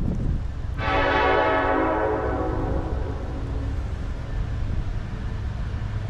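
A distant freight locomotive's air horn sounds one short blast about a second in, its chord fading away over the next couple of seconds, over a steady low rumble.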